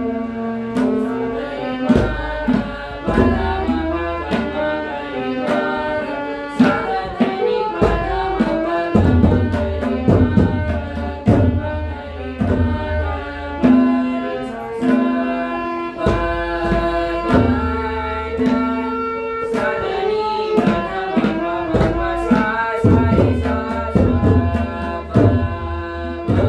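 Indian music: tabla drumming in a steady rhythm under a melody of long held notes.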